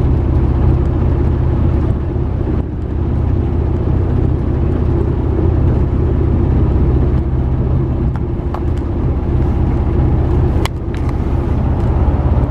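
Small fishing boat's engine running steadily underway: a constant low drone with water and wind noise over it. A single sharp click about ten and a half seconds in.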